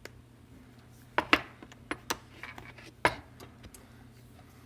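A series of small, sharp clicks and taps, about six in a few seconds, the loudest about a second in and again about three seconds in: an iPhone 7 display assembly being pressed and clipped into the phone's frame.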